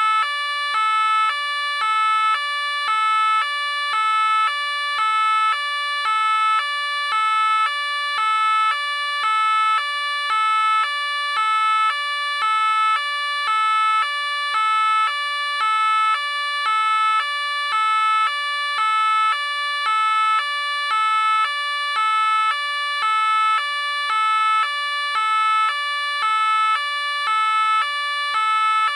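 French police car two-tone siren alternating steadily between a high and a low note, about one high-low cycle per second.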